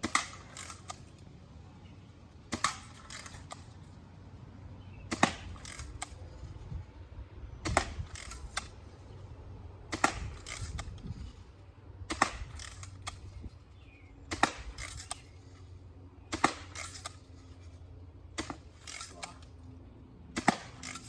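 BB gun being fired repeatedly in rapid succession, about every two to two and a half seconds, each shot a short cluster of sharp snaps and clicks.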